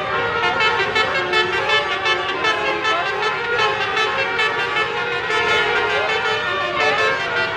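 Indonesian bus "telolet basuri" multi-tone air horns playing a continuous melody, several horn notes sounding together with a few short sliding notes.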